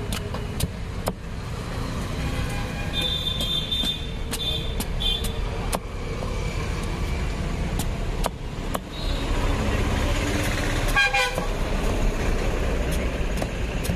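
Street traffic rumbling with vehicle horns tooting: a few short high beeps about three to five seconds in and another horn near eleven seconds. Sharp clicks of a machete blade slicing through raw jackfruit rind run through it.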